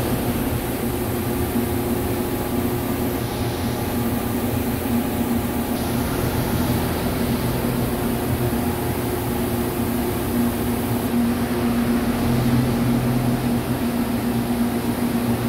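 Steady machine-shop drone: industrial machinery running with a constant low hum and a few steady tones over an even hiss.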